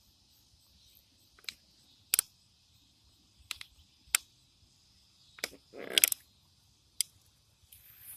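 A series of sharp, separate clicks and snaps, about seven spread irregularly, the loudest cluster about six seconds in, over a faint steady high-pitched insect hum.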